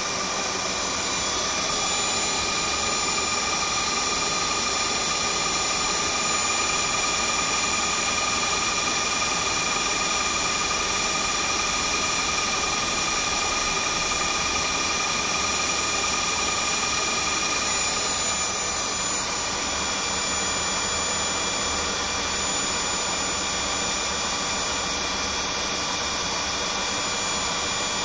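Tineco Floor One S5 wet-dry vacuum running its self-clean cycle on its dock: the suction motor and the spinning brush roll pull rinse water through into the dirty-water tank. It makes a steady, high whine over a hiss, and the whine shifts slightly about two-thirds of the way through.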